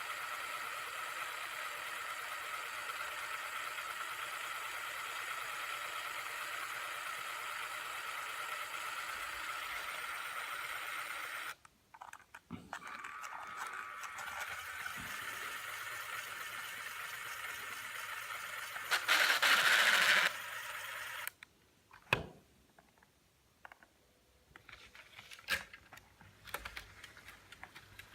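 LEGO 12-volt train motors running steadily, then cutting out suddenly about eleven seconds in. They run again, with a brief louder stretch around twenty seconds, and then stop, leaving scattered clicks and clacks.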